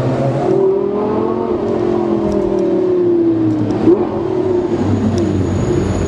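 Supercar engine heard from inside the cabin, running steadily with its note falling slowly as the car decelerates, with a brief sharp noise about four seconds in.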